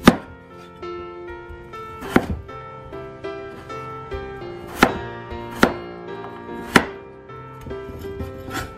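Wide-bladed kitchen knife cutting through a raw peeled potato onto a wooden cutting board: six sharp knocks at uneven intervals, the first the loudest.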